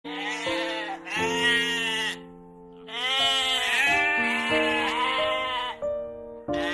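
Sheep bleating, several wavering bleats one after another, over background music with steady held notes.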